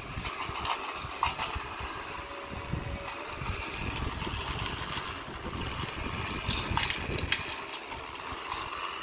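Battery-powered toy train engine running along plastic track: a small electric motor whirring as the wheels rattle over the track, with a few sharp clicks about a second in and twice near the end.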